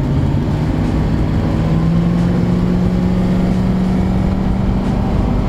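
Classic Range Rover's V8 engine heard from inside the cabin under way, its drone rising slowly in pitch from about a second in as the vehicle gathers speed, over a low road rumble.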